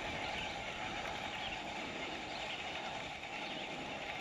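Steady whirring of a baitcasting reel being cranked through a fast, steady retrieve of a wake-bait lure.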